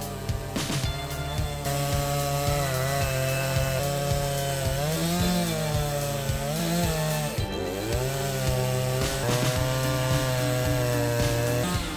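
Two-stroke chainsaw running under load as it cuts through a log, its engine pitch repeatedly sagging and picking back up, with background music underneath.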